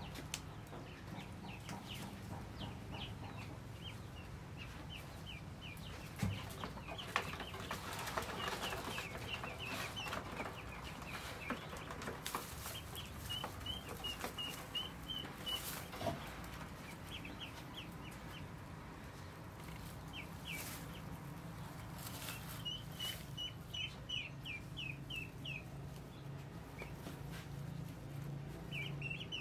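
Hen clucking as she steps into a straw-lined nest basket and settles onto her eggs, with scattered rustles and clicks from the straw and basket as she moves.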